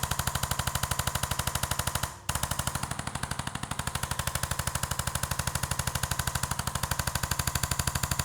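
Electric percussive massage gun running, a rapid steady hammering of even pulses, stopping for a moment about two seconds in and cutting off at the end.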